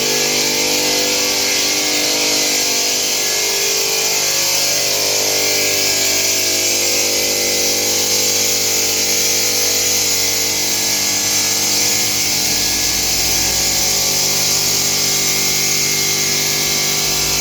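Electric stone-working machine running steadily: a motor hum with several steady tones over a high grinding hiss, with a deeper rumble coming in about twelve seconds in.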